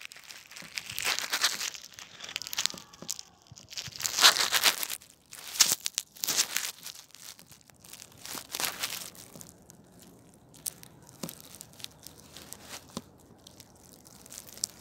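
Irregular crackling and rustling in short bursts, the sound of dry grass brushing and scraping against the microphone of a phone lying in the grass. The bursts are busiest in the first half and then thin out to a few faint ticks.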